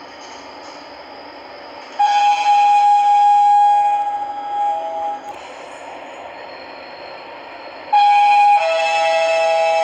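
Sigma elevator's electronic chime: a held high tone about two seconds in, joined by a lower tone before it stops, then sounding again near the end, high note first, then the lower note held under it.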